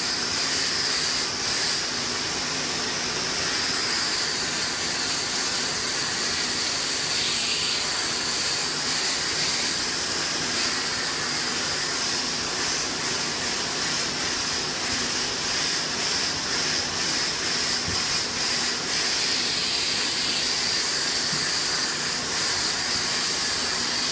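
Commercial steam cleaner's wand jetting steam onto travertine shower tile and grout: a steady hiss with a thin high whine over it. For several seconds in the middle the hiss pulses about twice a second.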